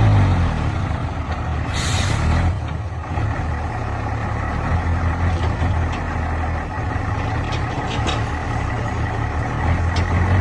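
Heavy diesel engine running steadily, its revs easing down at the start and picking up again near the end. A short burst of air hiss comes about two seconds in, typical of a truck's air brakes releasing.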